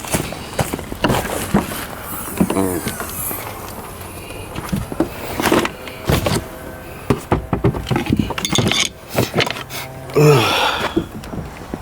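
Hand work on a car interior: scattered knocks, clunks and rustling as parts are handled, with a brief murmur of a voice twice.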